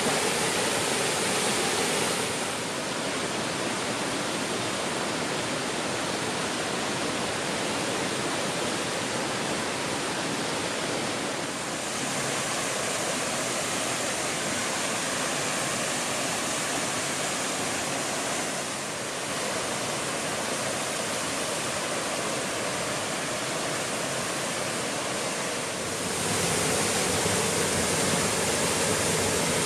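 Waterfall: a steady, dense rush of falling water. Its tone shifts abruptly four times, about two seconds in, twice in the middle and near the end.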